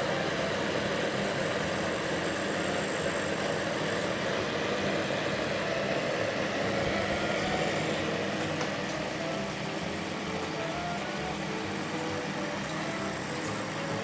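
Microwave oven running with its outer cover off: a steady hum from the magnetron's high-voltage transformer and the oven's running parts.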